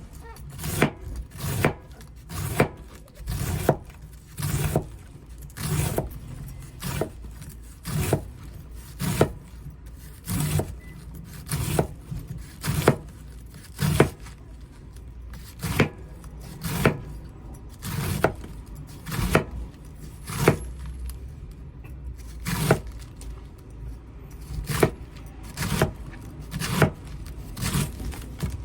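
A kitchen knife shredding cabbage: sharp slices down through the leaves onto a cutting board, about one stroke a second, some in quick pairs.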